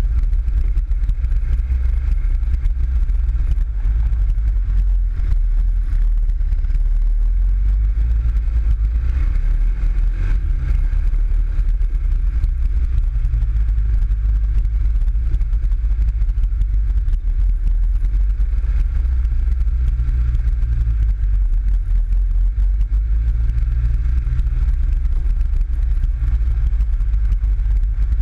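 PGO 500i off-road buggy's engine running under way, heard from the open cockpit as a loud, steady, heavy low rumble. The engine note rises and falls a little with the throttle.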